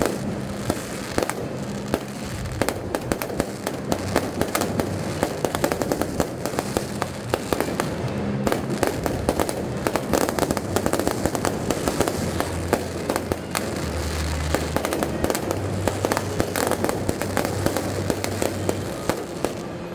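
Aerial fireworks going off continuously, a dense run of bangs and crackling with no pause, over music with held low notes.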